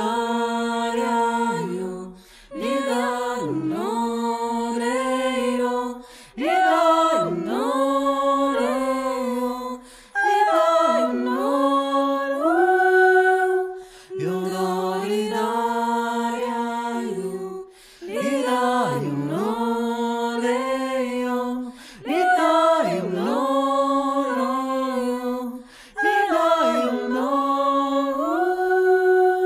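Unaccompanied voices singing in harmony, a cappella: a phrase about every four seconds, each swooping in and settling on a held chord, with short breaks between phrases.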